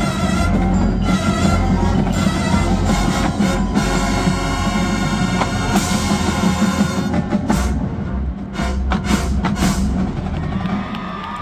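Marching band playing its field show: winds sustaining chords over percussion, with a run of heavy drum strokes cutting through in the second half.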